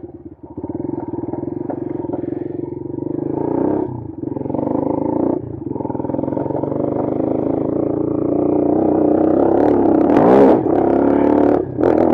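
Bashan Brozz 250 dual-sport motorcycle's single-cylinder engine pulling hard through the gears, with short drops in sound at the shifts. In the second half it revs up steadily and is loudest near the end, then briefly cuts back just before the end.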